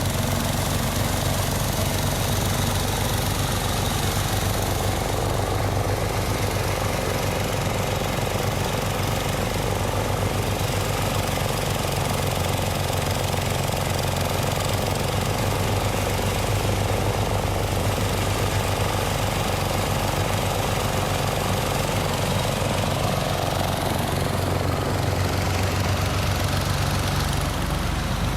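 Engine-driven rice threshing machine running steadily as rice stalks are fed in by hand, separating the grain and throwing the straw out. It is a constant, rattling engine drone.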